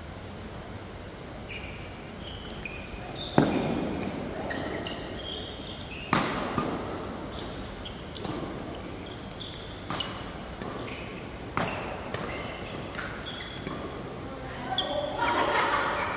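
Badminton doubles rally in a large indoor hall: sharp cracks of rackets hitting the shuttlecock, four of them hard and echoing, with short high squeaks of shoes on the court between shots. Voices call out near the end.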